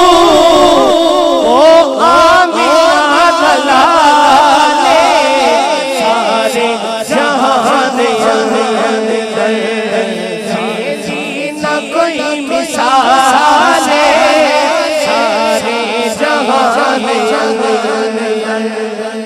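Male voices singing a Punjabi naat: a lead voice in long, wavering, ornamented lines over a steady held drone beneath, fading near the end.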